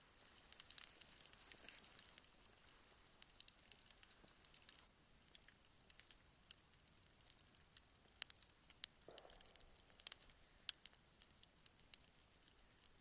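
Small wood campfire crackling, with scattered sharp pops at irregular intervals over a faint hiss.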